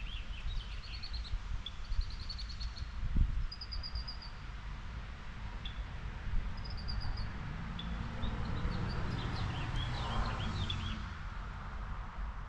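Small birds chirping and trilling over a steady low rumble. A broad rushing noise swells and fades between about eight and eleven seconds in.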